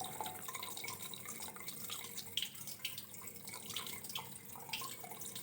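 Gentle water trickling, with small irregular drips and splashes.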